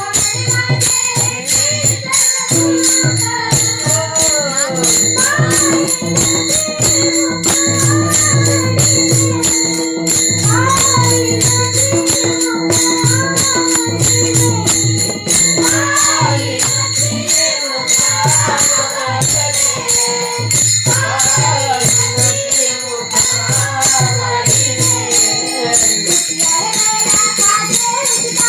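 Marathi kirtan panchapadi devotional singing by a woman, with a steady rhythmic percussion accompaniment. A long held steady note sounds under the voice from a few seconds in until about halfway.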